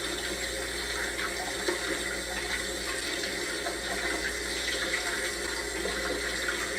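Tap water running steadily into a sink while hands are washed under it.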